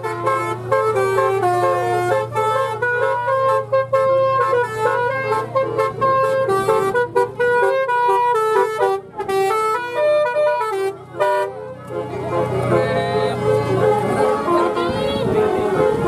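Bus 'telolet basuri' musical horn playing a quick melody of stepped notes over a steady low hum. The horn stops about twelve seconds in and voices take over.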